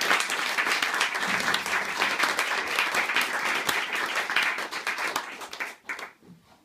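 Small audience applauding, a dense patter of hand claps that thins out about five seconds in and ends with a few last claps.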